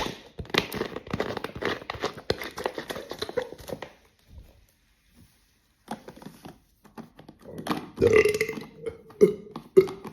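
Man belching after drinking carbonated water: a long, rattling belch over the first few seconds, then after a short pause a second belch about eight seconds in.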